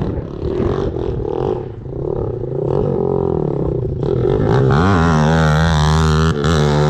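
ATV engine running through an aftermarket exhaust pipe, rumbling unevenly and then revving up about four and a half seconds in, held high and loud before dropping back near the end.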